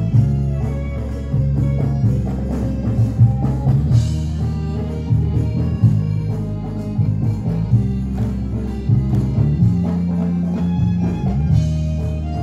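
Live band music: a violin melody over electric bass, keyboard and drums, with a steady moving bass line. There is a cymbal crash about four seconds in and another near the end.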